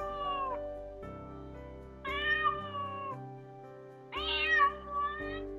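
Domestic cat meowing, with meows about two seconds apart, the last followed by a short second call, over soft background music.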